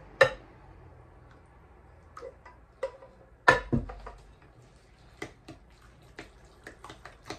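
A spoon knocking and scraping against bowls as stew is scraped out into a glass mixing bowl. A bowl is set down with a sharp double clunk about three and a half seconds in, then the spoon clicks lightly against the glass bowl as the rice and stew mixture is stirred.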